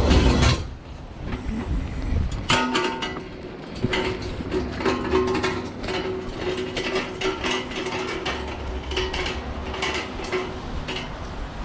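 Empty sack truck being wheeled over pavement, its wheels and frame rattling and clattering steadily with a faint squeal underneath.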